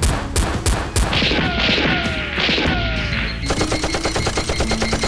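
Gunfire sound effects: a few single shots, then three falling whines, then rapid automatic fire from about three and a half seconds in.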